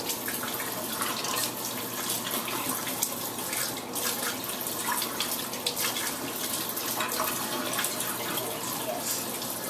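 Tap water running steadily, pouring over a dog being bathed.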